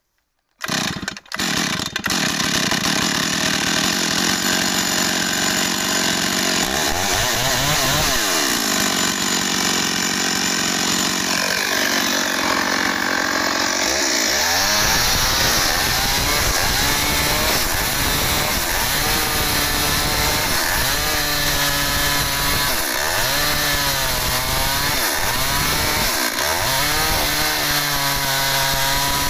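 STIHL MS 382 two-stroke chainsaw starting up about half a second in, then revving high. From about fifteen seconds in it is cutting into a log, its engine pitch dipping and recovering over and over as the chain bites into the wood.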